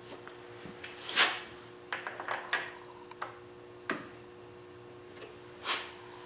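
A new alternator pulley handled and pushed onto the alternator shaft by hand: a few scattered light clicks and knocks of metal parts and two brief scrapes, over a faint steady hum.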